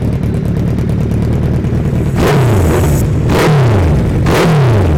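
Suzuki Hayabusa's inline-four engine running through an aftermarket slip-on exhaust. It idles and is then blipped three times about a second apart, the revs jumping and falling back each time.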